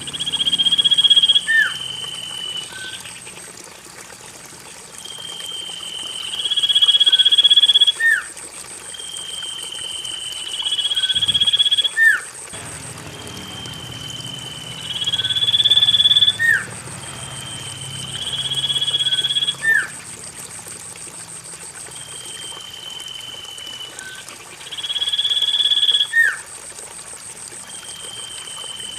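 Common iora (cipoh) singing: a long, high whistled note that ends in a quick downward slur, repeated about every three to four seconds, over a steady thin high-pitched tone, played as a lure song to get caged birds singing.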